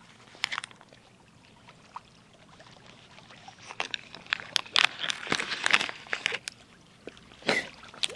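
Close handling noises: after a quiet start, a cluster of sharp clicks and rustles with some water splashing, and one louder knock near the end.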